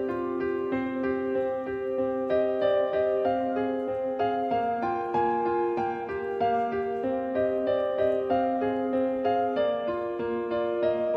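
Background music: a gentle piano melody with chords, notes changing at an even pace.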